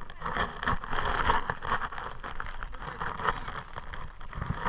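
Handling noise from fingers rubbing and tapping on a GoPro's waterproof housing: an uneven scraping rustle dotted with small clicks and knocks.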